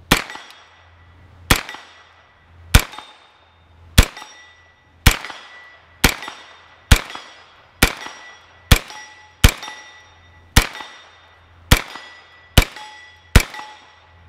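FX9 straight-blowback 9mm carbine firing about fifteen single shots at a steady pace of roughly one a second, each shot followed by a brief ringing tone. It runs through a full 15-round factory Glock 17 magazine without a stoppage.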